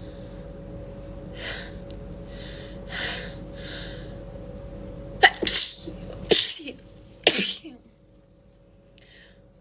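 A person sneezing three times in a row, about a second apart, after a few soft breathy catches of breath.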